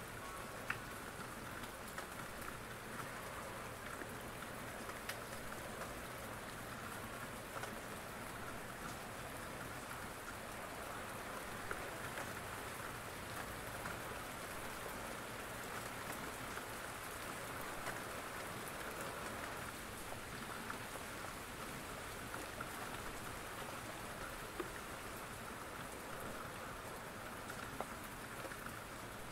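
Steady rain falling, with sharp ticks of drops now and then.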